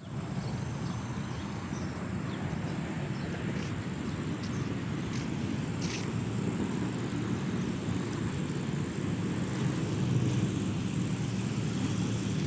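Steady low rumbling noise with a few faint clicks in the first half.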